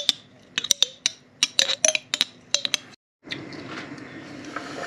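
Metal spoon clinking and tapping against a glass jar while scraping out tomato paste, a quick irregular run of sharp clinks. After a brief break about three seconds in, a softer scraping rustle follows as diced carrots slide off a wooden cutting board into the cauldron.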